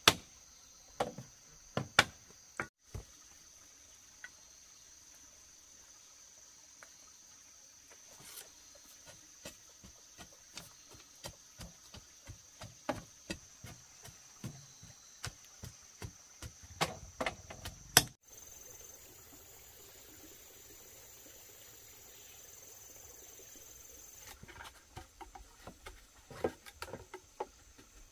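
Steady high drone of forest insects, with scattered sharp knocks and taps from hand work. The loudest knock comes about two-thirds through.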